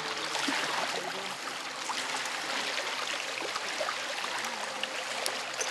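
Water rushing and splashing along the hull of a moving motorboat, with a low steady hum underneath.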